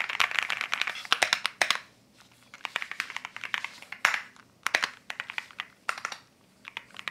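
Keychron Q2 Max double-gasket wireless mechanical keyboard being typed on: rapid keystrokes clattering in runs. The keystrokes come thickest in the first second and a half, lull briefly around two seconds in, then go on in shorter bursts.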